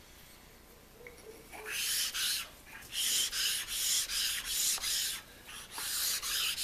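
Abrasive stone file pushed back and forth over the hand-scraped cast iron ways of a milling machine, knocking down the scraping high spots. Quiet for about the first second and a half, then runs of short scratchy strokes, about three to four a second, with a brief break in the middle.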